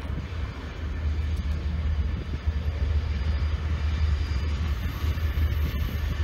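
Diesel locomotive running as it approaches: a steady low rumble.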